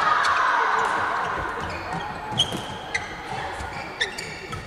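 Badminton crowd cheering and calling out, fading over the first second or so. Then a rally starts: several sharp racket strikes on the shuttlecock, spaced half a second to a second apart, with short high squeaks of shoes on the court mat.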